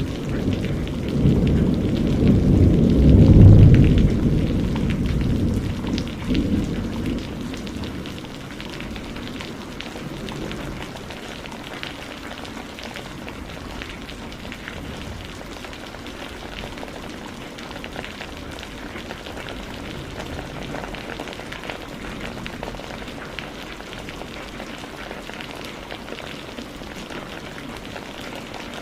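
Rain falling steadily, with a roll of thunder rumbling through the first several seconds, loudest about three and a half seconds in, then dying away to leave only the steady rain.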